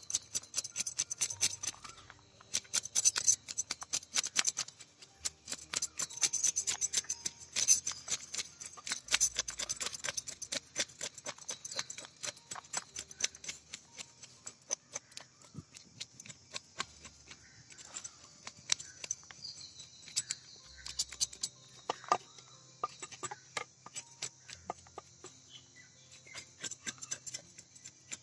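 A knife blade scraping the scales off a whole fish on a wooden block, in quick repeated strokes that come in runs with short pauses. The strokes are louder in the first half.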